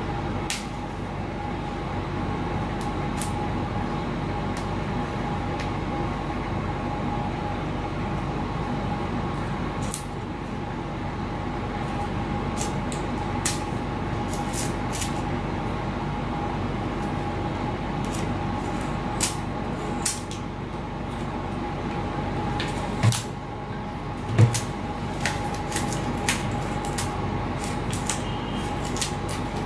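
Small clicks and taps of hands and tools working a foam RC wing panel on a workbench, with two louder low knocks a little past two-thirds of the way through, over a steady hum with a faint whine.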